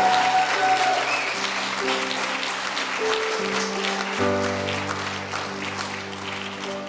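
Congregation applauding over soft instrumental background music with sustained chords, with a short whoop right at the start. The clapping dies down toward the end.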